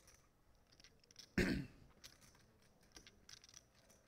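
Faint clicking of clay poker chips being riffled and handled at the table, with a single short cough about a second and a half in.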